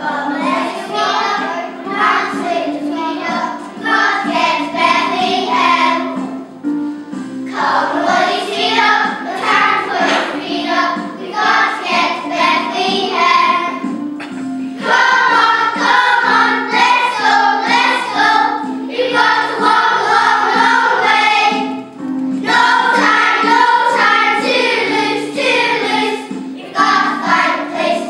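A group of young children singing together as a choir, in sung lines with brief pauses between them.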